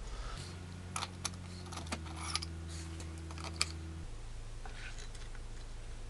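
A few light, sharp clicks and clinks of small hard parts or tools being handled. They sit over a low steady hum that comes on about half a second in and stops about four seconds in.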